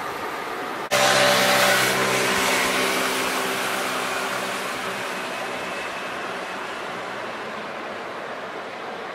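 Street traffic noise. About a second in it turns abruptly louder, with a motor vehicle's steady engine hum and a hiss that fade away slowly over the next few seconds.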